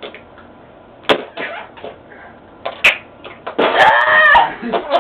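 A few sharp knocks and thumps, then a loud, high-pitched shriek with a wavering pitch lasting about a second, from a young woman throwing herself back on a bed.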